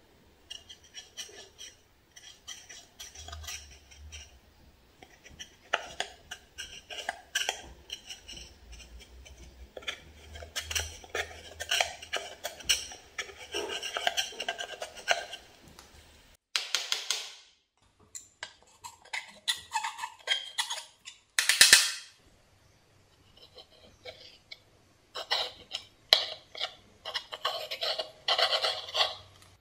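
Knife blade and metal spatula scraping and crumbling pressed eyeshadow out of the pans of a plastic palette. It comes as irregular clusters of short scratching and crunching strokes with brief pauses, and a few sharper scrapes near the middle.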